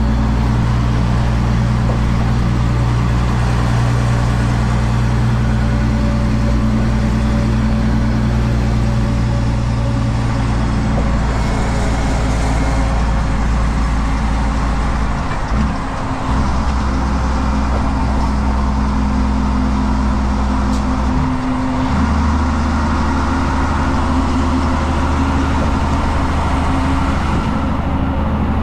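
Heavy truck's diesel engine pulling steadily, heard from inside the cab over wind and road noise, with an 18-speed Road Ranger manual gearbox. The engine note breaks briefly and settles at a new pitch twice, about 16 and 22 seconds in, as gears are changed.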